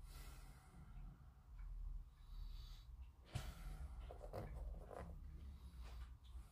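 Quiet room tone with a steady low hum, and a few faint clicks and taps from about three seconds in as small hobby tools, tweezers and a fine paintbrush, are handled over a cutting mat.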